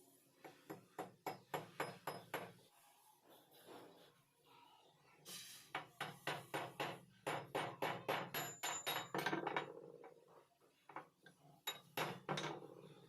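Quick series of light metal-on-metal taps, about four to five a second, in three runs with short pauses between, some strikes leaving a brief high ring.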